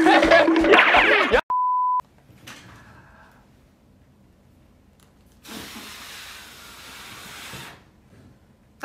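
Voices shouting, cut off by a steady half-second test-tone beep, the kind of censor or edit beep laid over footage. After a near-quiet stretch comes a soft rush of noise lasting about two seconds.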